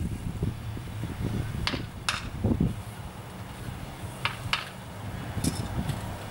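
A mason's hand tools ticking lightly against sandstone blocks as he works the stones of a window surround: about five short, sharp clicks, some in quick pairs.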